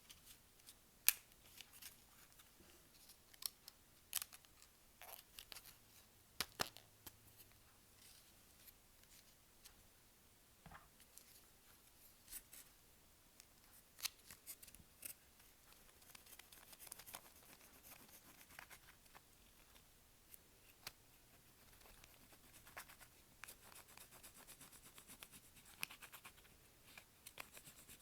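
Clear slime being handled by hand: quiet, irregular sticky clicks and small crackling pops.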